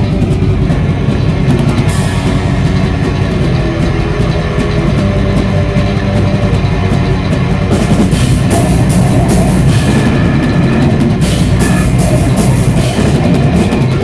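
Heavy metal band playing at close range: distorted electric guitars over a drum kit. The cymbals come in louder and busier about eight seconds in.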